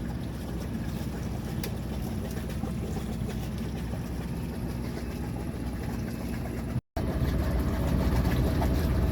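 A boat engine running steadily with a low hum, broken by a brief cut-out about seven seconds in, after which it comes back a little louder.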